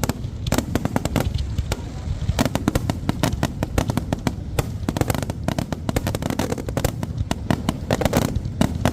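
Aerial fireworks display: a dense, continuous run of sharp pops and crackles from bursting shells.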